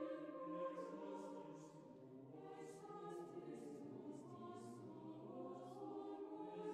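A choir singing a slow hymn softly, with the sung words' s-sounds clear. The singing dips a little about two seconds in, then swells again.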